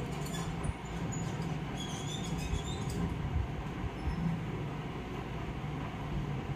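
Steady low background hum and noise, with a few faint high chirps about two seconds in.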